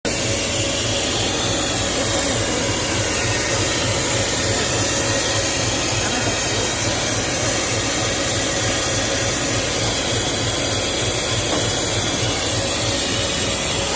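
Compressed air hissing steadily and loudly from a passenger coach's alarm chain pulling (ACP) emergency valve. The chain has been pulled, so the train's brake pipe is venting to the open air until the valve is reset.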